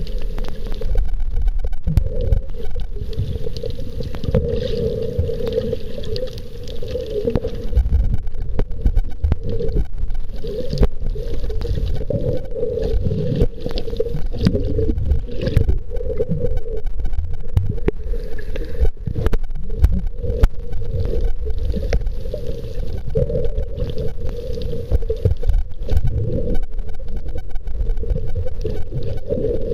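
Muffled underwater noise picked up by a camera held underwater: a low, churning rumble of water with a wavering hum and scattered sharp clicks.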